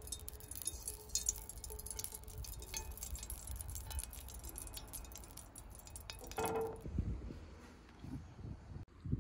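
Melted butter poured and scraped from a glass bowl into a nonstick frying pan: fine crackling with light clinks of the spatula on the glass, and a louder knock with a short ring near the end.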